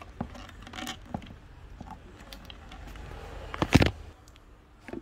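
Handling of a speaker's toroidal transformer and its wiring plugs on a wooden workbench: small clicks and rustles, with a louder knock about three and a half seconds in.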